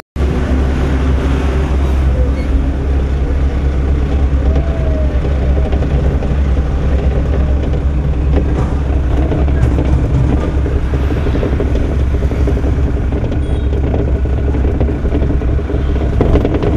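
Motor vehicle engine and road noise heard from inside the cab while driving: a steady low rumble.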